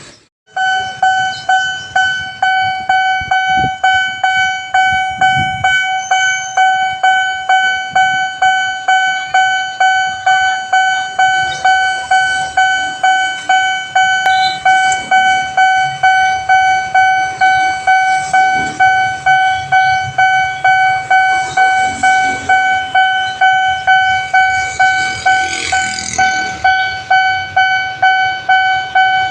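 Railway level-crossing warning alarm ringing: an electronic bell tone struck about twice a second, each stroke fading before the next. It starts abruptly about half a second in, signalling that a train is approaching and the barriers are closing.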